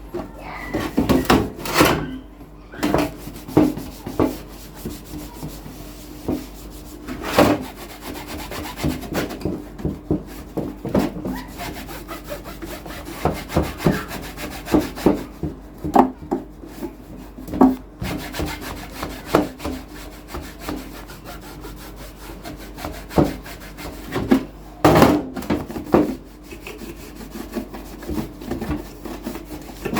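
Hands and tools scraping, rubbing and knocking irregularly on a radio cassette recorder during cleaning and repair, with a few louder knocks, over a steady low hum.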